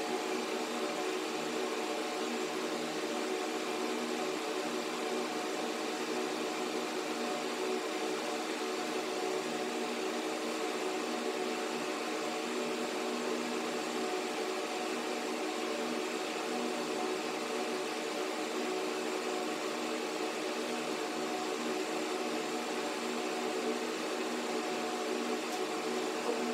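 A steady mechanical hum: several fixed low tones over an even hiss, with no change in level.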